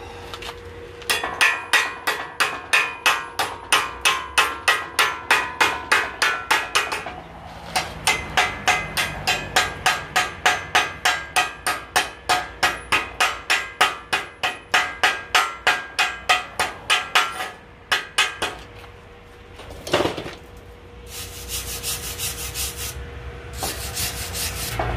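A hammer striking steel in two long runs of rapid, evenly spaced blows, about four or five a second, each with a ringing metallic note. The runs are followed by a single thud and then two short bursts of hiss near the end.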